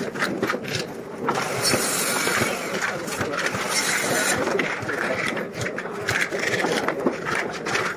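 Hammer striking nails into small wooden blocks, a series of sharp knocks, over steady machine noise.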